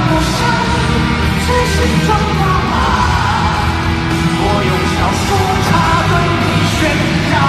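Live band music played loud, with a male singer singing hard into a handheld microphone over it.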